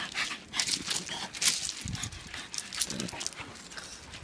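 Dogs play-fighting on gravel: stones crunch and scrape under their paws in quick irregular scuffs, with a short low dog vocalization about three seconds in.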